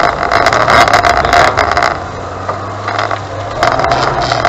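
Car engine revving hard in first gear, heard from inside the cabin. There is a loud surge over the first two seconds, a dip, then a second surge near the end.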